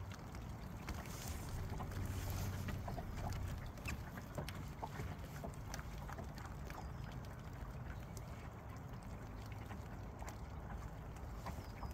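Low wind rumble on the microphone and water lapping against a bass boat's hull, with scattered light ticks and knocks.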